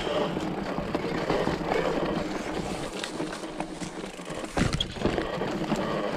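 Mountain bike rolling down a rough dirt singletrack: tyre noise on the dirt with the bike rattling and clicking over the bumps, and a heavier knock about four and a half seconds in.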